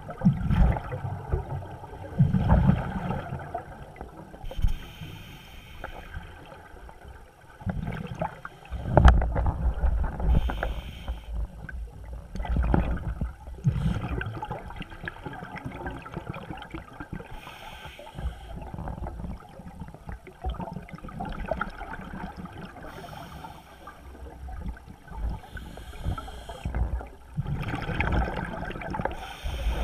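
Scuba diver's regulator breathing heard underwater: a short hiss of inhalation every several seconds alternating with low gurgling bursts of exhaled bubbles.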